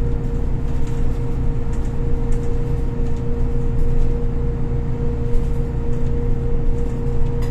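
Golden Dragon XML6125CC city bus with Voith automatic gearbox under way, heard from inside the cabin: a steady low engine drone with a constant whine over it.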